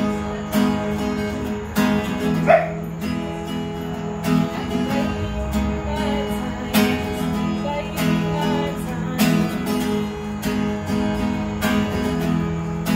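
Acoustic guitar strummed in a steady rhythm, accented strokes a little over a second apart with lighter strums between. A brief loud sound cuts in about two and a half seconds in.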